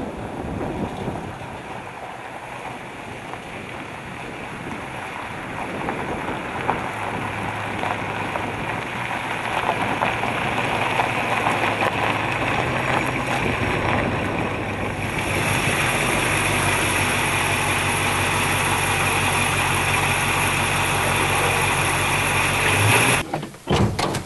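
A 1963 Chevy II's engine running as the car approaches and rolls over gravel, growing louder as it comes close. The sound cuts off suddenly near the end, followed by a few clicks.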